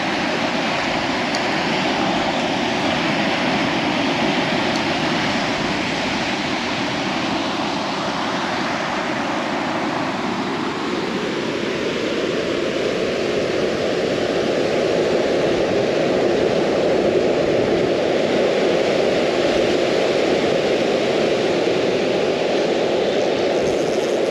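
Steady rushing of ocean surf on the beach, mixed with wind on the microphone; the tone of the rush shifts about ten seconds in.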